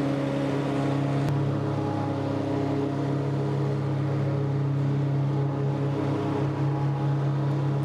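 Tractor engine running at a steady speed, driving a 12-foot Woods Turf Batwing rotary mower through grass; the pitch holds constant throughout.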